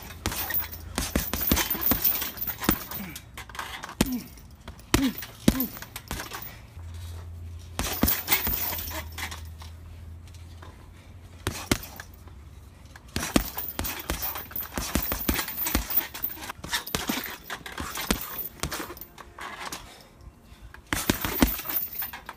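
Boxing gloves thudding on a Ringside heavy punching bag in bursts of quick combinations, with short pauses between the flurries.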